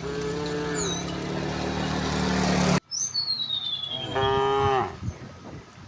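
Cows mooing: a long moo at the start and a louder one about four seconds in.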